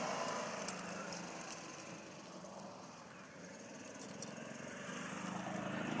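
Golf cart running as it drives across grass, fading to its quietest about halfway through and then growing louder again near the end.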